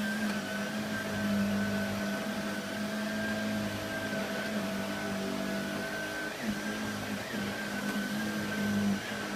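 Hoover Allergy vacuum cleaner with its power head running steadily over carpet, a constant motor hum under a steady high whine.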